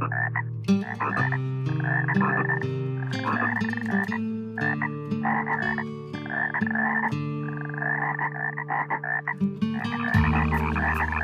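Frogs croaking in repeated bursts about once a second, over steady low tones that shift in pitch every second or two.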